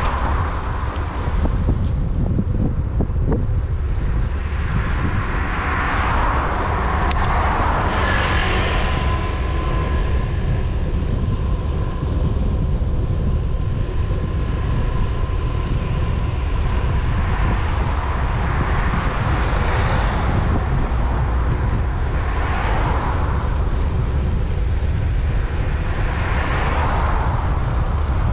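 Steady wind rumble on the microphone of a camera moving along a road, with cars swishing past several times, the clearest about a second in, around 7 seconds, and near 20 and 27 seconds. A faint steady whine runs under it from about 8 to 20 seconds.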